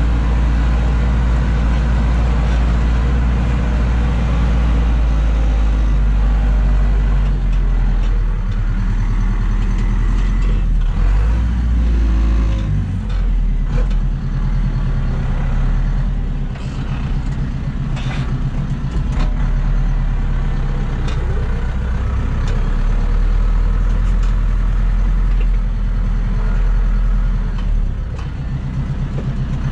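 Zetor tractor's diesel engine running under load, heard from inside the cab, as a steady low drone. Its note shifts a little around the middle, with a few knocks and rattles.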